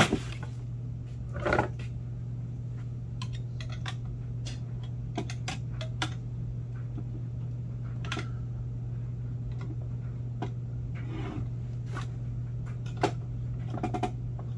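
Scattered clicks, knocks and scrapes of a hand tool working inside a plastic gummed paper tape dispenser to free a part stuck in it, over a steady low hum.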